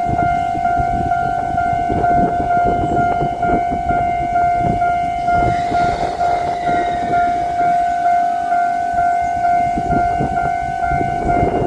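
Japanese level-crossing electronic warning bell ringing its rapid, even 'kan-kan' beat, over the rumble and knocking of a Kotoden Shido Line electric train running through the crossing. A brief falling squeal comes about halfway through.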